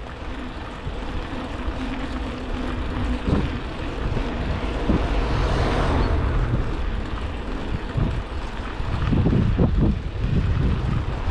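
Wind buffeting the microphone of a chest-mounted camera on a moving bicycle, over a steady low rumble of the tyres on the road. A car passes, swelling and fading around the middle, and a run of knocks and rattles comes near the end.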